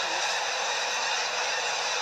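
A vast flock of snow geese taking off together from the water: a steady, dense wash of massed wingbeats and calling.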